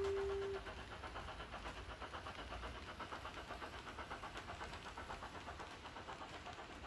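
Accurascale OO-gauge coal wagons rolling past on model track, their wheels clicking quickly and evenly over the rail joints. A held whistle tone, the loudest sound, stops about half a second in.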